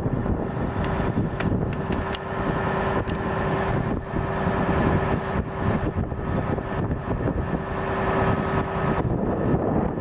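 Mercedes-Benz 2429 concrete pump truck running steadily with its Schwing boom raised, a continuous mechanical rumble with a steady whine that cuts off about 9 seconds in.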